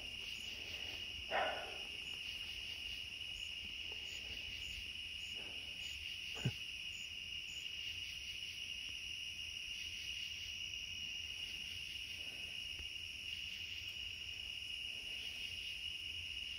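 A steady, continuous chorus of night crickets trilling. There is a soft brief sound about a second in and a single sharp click about six seconds in.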